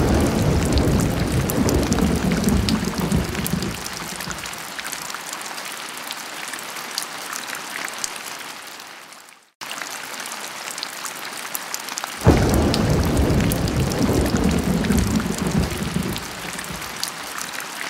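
Heavy rain drumming on a car's windscreen and roof, heard from inside the cabin as a steady hiss flecked with many small drop hits. A low rumble sits under it at the start and comes in again suddenly about two-thirds of the way through. The sound breaks off for an instant about halfway.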